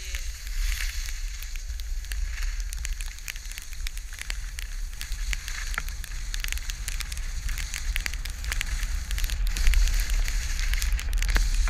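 Skis scraping and chattering over snow in a continuous crackle, with wind rumbling on the helmet camera's microphone. The rumble grows louder in the last few seconds.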